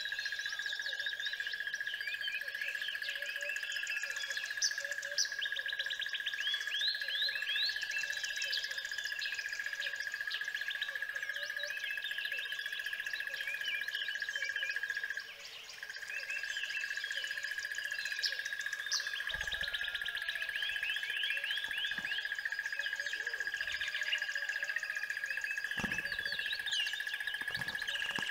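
Chorus of many small birds chirping and trilling, over a steady high-pitched drone. The whole sound dips briefly about halfway through.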